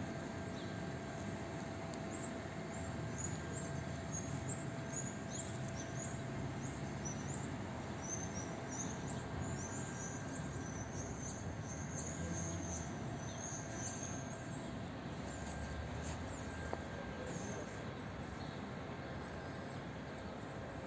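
Outdoor ambience: a steady low rumble of background noise, with small birds chirping high and rapidly through much of it, the chirping dying away a few seconds before the end.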